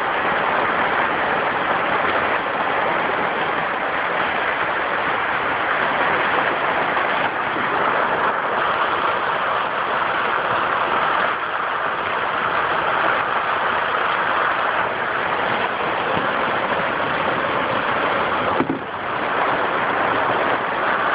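Steady rushing noise of a storm's wind and rain, with a brief dip and a click about nineteen seconds in.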